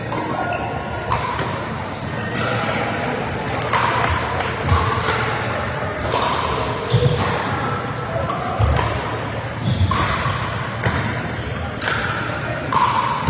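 Pickleball paddles hitting a hollow plastic ball: many sharp pops, about one a second, from several courts, echoing in a large sports hall, with players' voices in the background.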